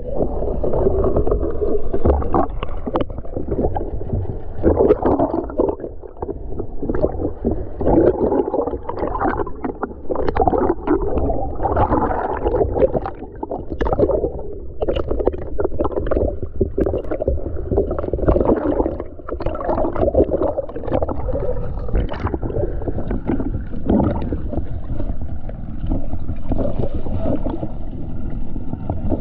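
Water sloshing and gurgling around a camera held just under and at the sea surface, heard muffled, with many small clicks and knocks.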